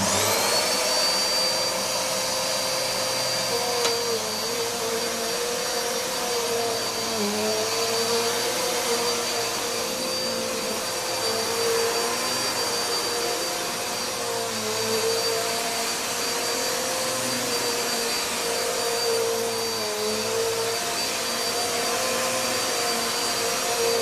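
Electrolux Powerlite 1700 W bagged upright vacuum cleaner switched on and pushed over carpet. Its 'screamer' motor spins up within about a second and then runs fairly loud and steady, with a little sound insulation in the base to damp it. The pitch sags slightly now and then as the cleaner is pushed.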